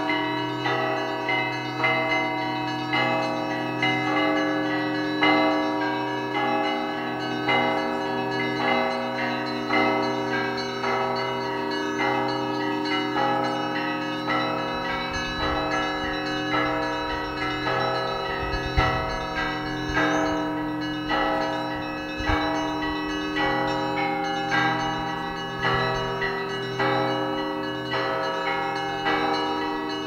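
Russian Orthodox bell ringing from a monastery belfry: several bells of different pitch struck over and over in a quick, steady rhythm above the lingering hum of a large low bell.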